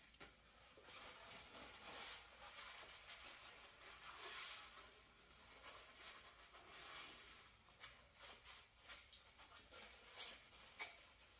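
Faint rubbing and swishing of a paper towel wiping thick glue squeeze-out off the stem of a cedar-strip kayak hull, with two sharp clicks near the end.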